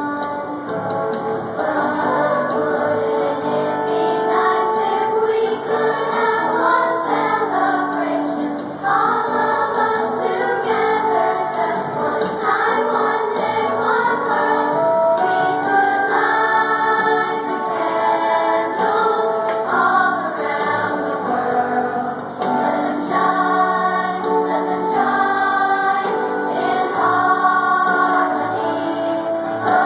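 Children's choir singing a Christmas song, many voices together in sustained notes without a break.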